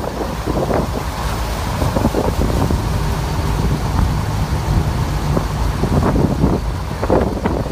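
A vehicle driving through shallow floodwater: water splashing and churning with a low rumble, and wind buffeting the microphone throughout.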